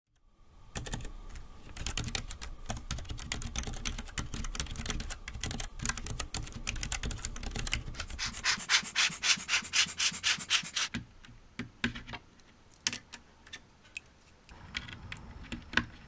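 Keychron K3 low-profile keyboard with unlubed red optical switches being typed on at medium speed: a quick, steady patter of key clacks. About eleven seconds in the typing stops, and a few separate clicks and handling sounds follow as keycaps and switches are pulled from the board.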